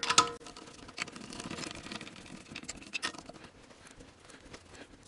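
Socket wrench clanking onto a wheel's lug nut, then rattling and scraping as the nut is spun down its stud on a steel rim, with a few sharp metal clicks; the loudest clicks come right at the start.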